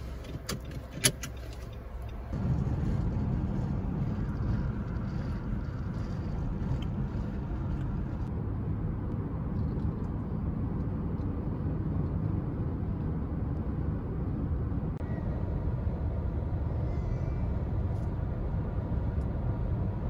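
A plastic bag crinkles with a few sharp clicks for about two seconds, then the steady low rumble of a moving car, heard from inside the cabin, takes over.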